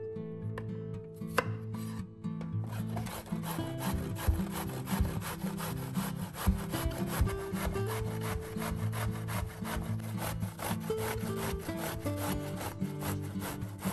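A fresh zucchini being grated on a stainless steel box grater: quick, even rasping strokes, about four or five a second, starting a couple of seconds in.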